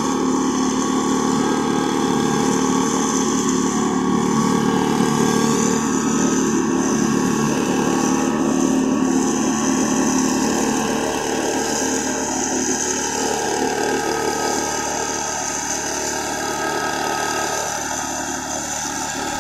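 A small engine running steadily at an even speed, a constant mechanical drone.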